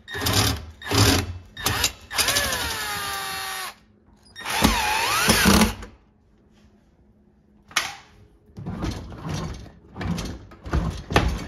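Cordless drill/driver backing out the screw that holds a dishwasher's top mounting bracket to the countertop. It runs in a few short bursts, then in two runs of about a second and a half each, with a motor whine that falls and steadies in the first run and dips and recovers in the second. From about eight seconds in come a sharp knock and then irregular knocks and rattles.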